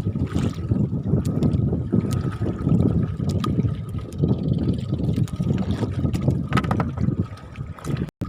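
Wind buffeting the microphone over the slosh of rough sea around a small boat, a heavy gusting rumble with scattered small knocks. A faint steady high tone runs underneath.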